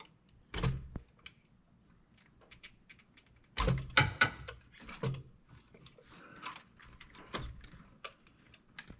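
Hand tools clicking and clattering against the Quadrajet four-barrel carburetor as it is being taken apart, with scattered small metallic clicks and a run of louder knocks about four seconds in.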